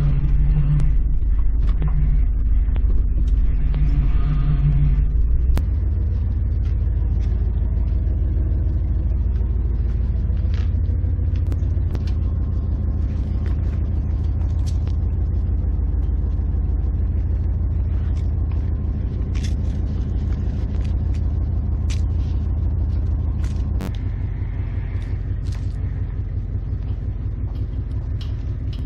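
Old Ford F-150 pickup engine idling with a steady low rumble. In the first five seconds a low groan comes and goes over the idle, in a truck its owner says needs power steering fluid; later the idle carries scattered light clicks and knocks.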